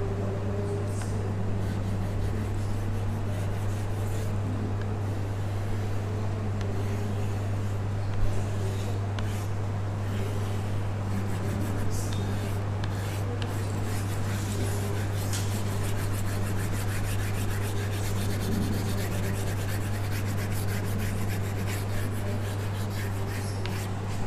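Chalk scribbling on a blackboard in many short repeated strokes as a drawing is coloured in, over a steady low hum.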